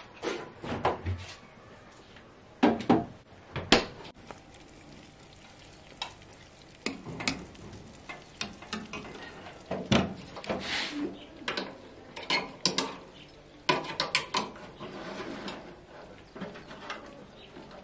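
Scattered knocks, clicks and scrapes of a utensil and a metal baking tray as chicken pieces are turned in a small countertop oven and the tray is slid out on its rack.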